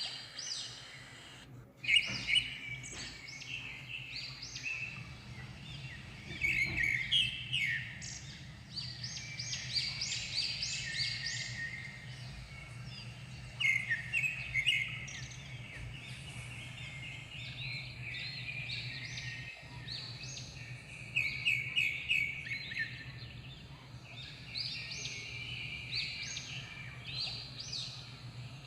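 Small birds chirping in repeated quick bursts of high notes, over a steady low hum.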